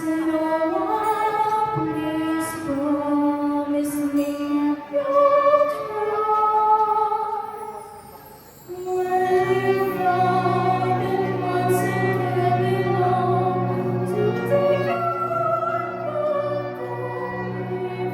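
Live ensemble music with a sung melody over the band. The music dips briefly about eight seconds in, then comes back in with a held low chord under the melody.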